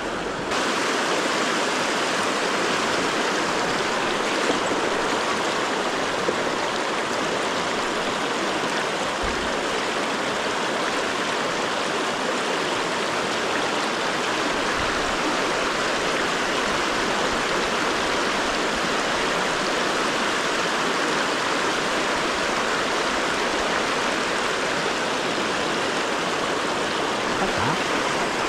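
River water rushing steadily over rocks, a close, even wash of flowing water that gets louder about half a second in. Two faint clicks come in the first several seconds.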